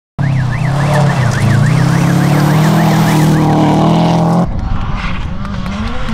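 Rally cars at speed on a gravel stage. For the first few seconds an engine is held at high revs, with a wailing up-and-down tone over it. After a cut about four and a half seconds in, another car's engine revs rise and fall through a corner, with gravel noise.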